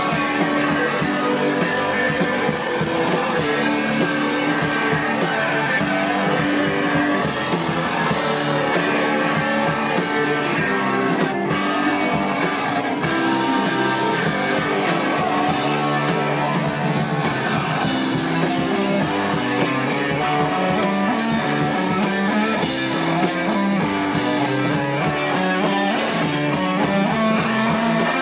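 Live rock band playing an instrumental section: loud distorted electric guitars over a drum kit's steady beat.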